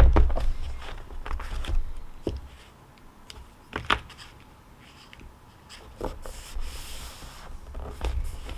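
Irregular taps, knocks and rubbing of small things handled on a desk, with a louder low thump at the start and a quieter stretch in the middle.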